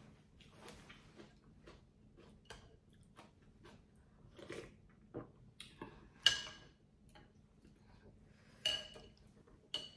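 Eating a bowl of pho: soft clicks and chewing, with a spoon or chopsticks clinking against the bowl, three louder ringing clinks in the second half.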